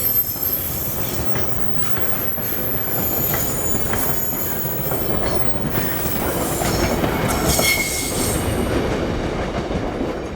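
Laden wagons of a materials train rolling past, their wheels squealing in several high tones over a steady rumble, with clicks over the rail joints. The squeal and rumble fade near the end.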